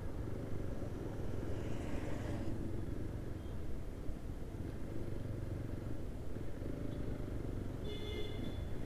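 Motorcycle engine running at low road speed, a steady low rumble with wind and road noise. A brief high-pitched tone sounds near the end.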